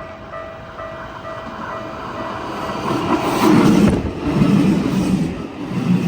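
Japanese level-crossing bell clanging in a steady even beat, then a Keikyu train rushes through at speed about three seconds in, drowning the bell, its wheels clattering in a regular rhythm.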